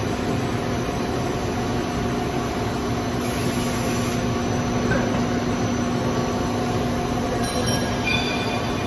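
LDPE/HDPE film blowing machine running: a steady mechanical whirr with a constant low hum. A short high squeal comes near the end.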